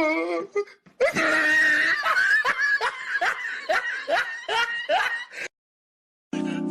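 A person laughing hard in a rapid run of short bursts, each rising in pitch, about two to three a second. The laughter cuts off abruptly about five and a half seconds in, and music starts just before the end.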